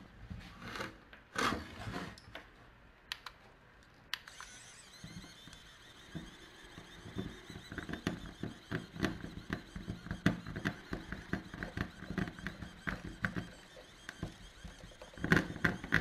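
3D pen's filament-feed motor running from about four seconds in, a steady whir with many small irregular ticks as it pushes molten filament onto a plastic plate. A few clicks come before it starts, and a couple of louder knocks near the end.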